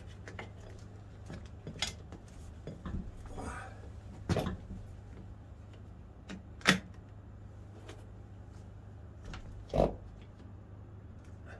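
Scattered clicks and knocks of rim protectors being clipped onto a motorcycle alloy wheel rim and tools being handled, with a heavier low thump just before the end as the long tyre-changer bar is taken up. A steady low hum runs underneath.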